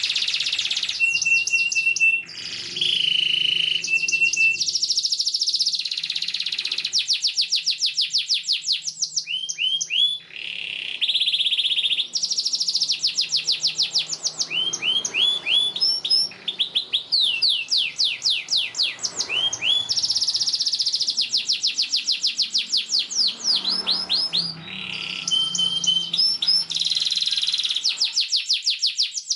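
Domestic canary singing a long, unbroken song of fast trills of rapidly repeated notes mixed with rising slurred notes, with only a few very short pauses.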